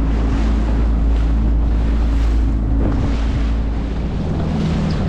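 Yamaha 25 hp outboard pushing an inflatable boat across choppy sea, a steady engine drone under heavy wind buffeting on the microphone and water splashing against the hull. The engine note drops slightly lower near the end.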